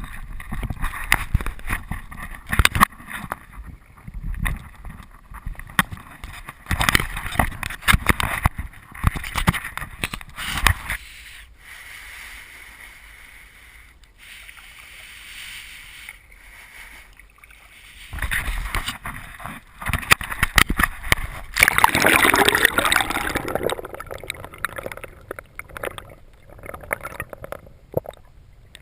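Water splashing and sloshing around a kayak in irregular bursts, as from paddle strokes and the hull moving on the water. There is a quieter stretch in the middle, and the loudest splashing comes about twenty-two seconds in.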